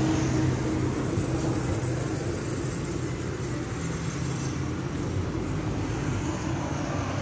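Steady low mechanical rumble with a hum, like an engine running.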